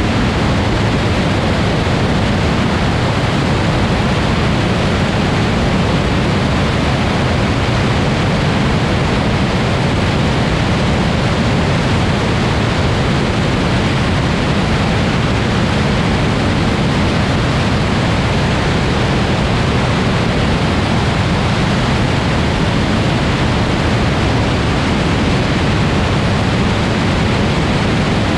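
Steady wind rush on the outside-mounted camera, with the low drone of a Grumman Tiger's engine and propeller in level flight underneath.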